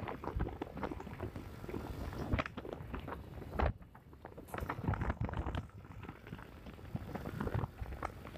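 Irregular crackling thumps of wind buffeting and rumble on a microphone carried on a moving motorcycle, easing for a moment about four seconds in.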